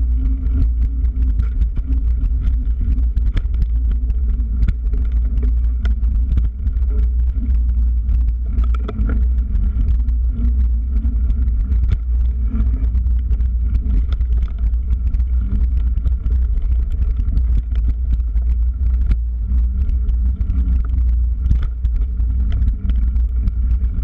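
Ride noise from a bike-mounted camera on a dirt singletrack: a steady low rumble of wind and vibration, with small rattles and clicks as the bike rolls over the ground.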